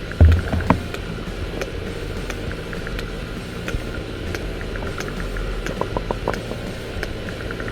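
Sperm whale clicks heard underwater: sharp clicks at irregular spacing, several a second, with a quick run of four about six seconds in, over a steady low hum. Two loud low knocks come in the first second.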